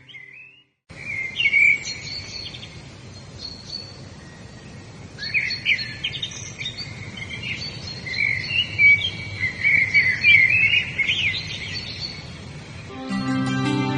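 Several birds singing and chirping in quick trills and whistles over a steady outdoor hiss. Near the start there is a moment of silence, and calm instrumental music with held tones comes back in near the end.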